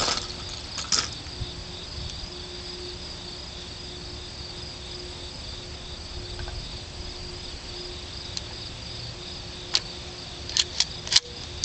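Insects trilling steadily in the background, with a few short, sharp clicks near the end.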